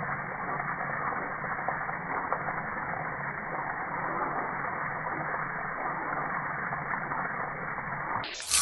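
Steady hiss of spraying water, sounding dull with the high end cut off.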